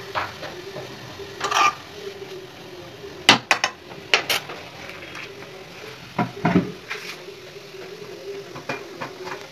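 A spoon scraping and knocking against a metal kadai while grated carrot is stirred, with several sharp clinks bunched in the middle and another near the end.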